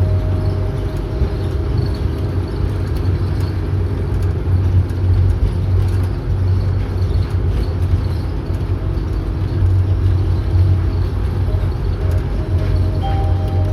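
Light rail (LRT) train running: a steady low rumble with a steady hum above it.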